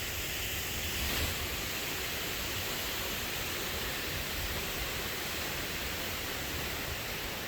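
Steady rushing outdoor noise with an uneven low rumble, like breeze on the microphone.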